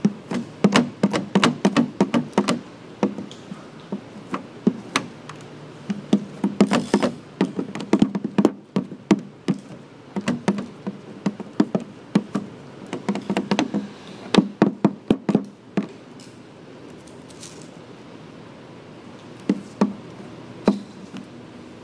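Hands and a squeegee working wet protective film over a plastic headlight lens, making irregular clicks and taps in clusters. There is a quieter stretch of a few seconds near the end.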